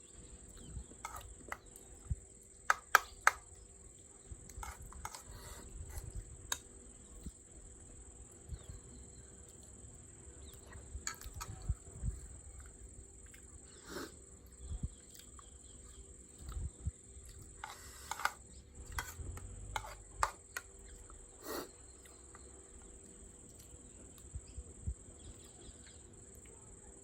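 Eating sounds at a table: irregular utensil clicks against a dish and chewing, over a steady high-pitched cricket trill.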